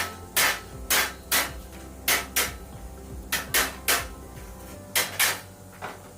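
Hammer strikes during frame building: about ten sharp, irregular blows, several in quick pairs, each with a short ring. A steady low hum runs underneath and stops near the end.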